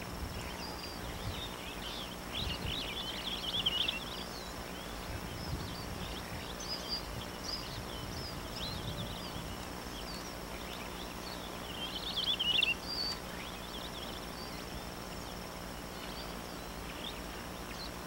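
Outdoor ambience with a small bird singing short warbling phrases, once about two to four seconds in and again around twelve seconds, over a steady faint high hiss.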